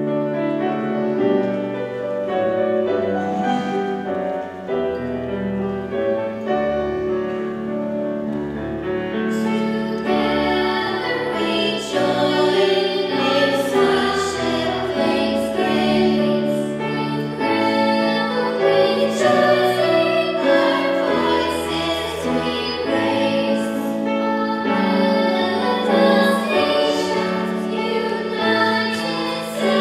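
Children's choir of girls singing a hymn in unison with piano accompaniment. The piano is most prominent for the first several seconds, and the voices come in fuller from about ten seconds in.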